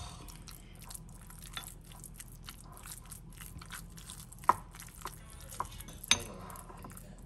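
Metal spoon mashing and stirring soft cooked squash in a ceramic bowl: a run of light scrapes and clicks of the spoon against the bowl, with two sharper clinks in the second half.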